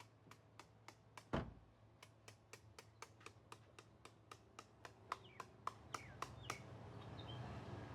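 Faint, regular clicking, about three to four clicks a second, with one dull thump about a second and a half in. A few faint bird chirps come in past the middle.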